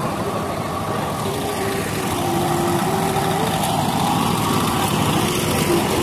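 Road traffic noise: motor vehicle engines running.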